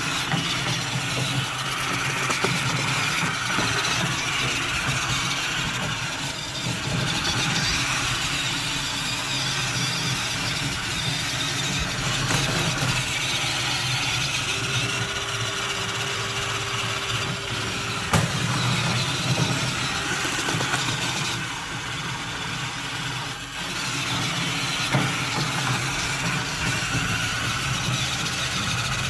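Grillbot cleaning robot's electric motors whirring steadily as its rotating brushes scrub along a grill grate, with a scraping sound from the bristles on the bars.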